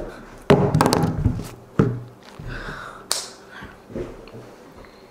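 Knocks and taps of handling something on a kitchen counter: a quick run of clattering knocks starting about half a second in, a sharp knock a little before two seconds, a short hiss just after three seconds, then a few lighter taps.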